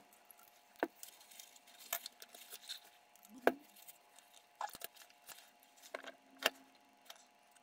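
Faint, scattered clicks and taps of a paintbrush and hands working at a plastic paint palette, about half a dozen over several seconds, the loudest about halfway through. A faint steady hum lies underneath.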